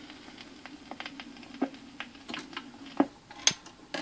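Garrard autochanger on a Bush SRP31c record player at the end of a 45 rpm single: the stylus ticks in the run-out groove over a low hum from the speaker. About three seconds in the hum stops and louder mechanical clicks follow as the changer mechanism cycles and lifts the tone arm.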